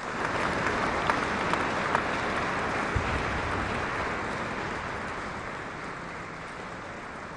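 Audience clapping in a large hall. The applause swells right at the start, then slowly fades over the last few seconds, with a single low thump about three seconds in.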